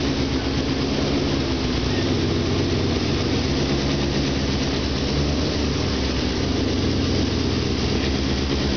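Four-cylinder engine of a tube-frame race car idling steadily, with an even, unchanging pitch.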